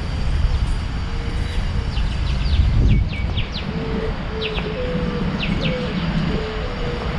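Small birds giving a series of short, quick, falling chirps, in bunches between about two and five and a half seconds in, over a steady low rumble of street background noise.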